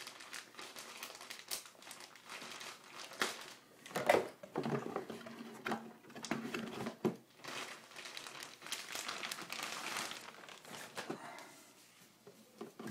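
Plastic anti-static bag crinkling and rustling as a motherboard is worked out of it, with a few sharper crackles; it dies down near the end.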